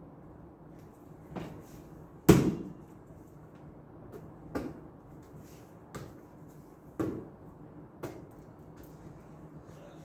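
A series of about six separate knocks and bangs, one every second or so, the loudest about two seconds in.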